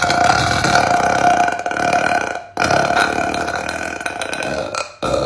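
A woman burping: two long burps of about two and a half seconds each, one straight after the other, each held at a steady pitch. A short third burp begins near the end.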